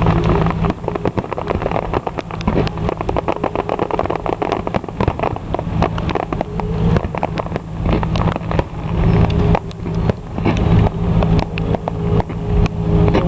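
A steady low engine hum, like a car idling, with dense, irregular crackling pops all through it.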